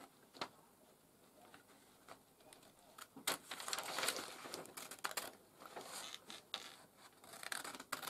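Scissors snipping through a sheet of wax paper, the paper crinkling as it is handled. Mostly quiet at first, with a run of cuts starting about three seconds in.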